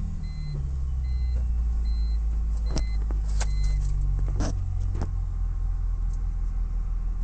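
Supercharged BMW E46 M3's inline-six idling steadily just after being started, its idle settling slightly in the first second. The car's warning chime beeps a bit more than once a second until about four seconds in, and a few sharp clicks sound around three to five seconds in.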